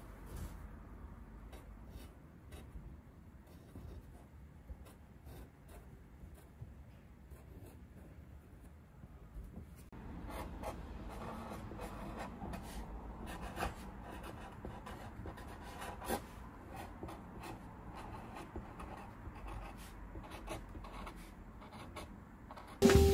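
Pencil tip scratching faintly as it draws short lines on a painted surface. About ten seconds in, a marker pen scratches more loudly as it writes on bare wood. Drum-kit music starts right at the end.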